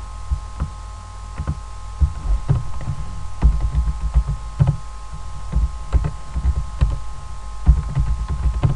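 Computer keyboard typing and mouse clicks, irregular taps that each carry a dull thump, over a steady electrical hum.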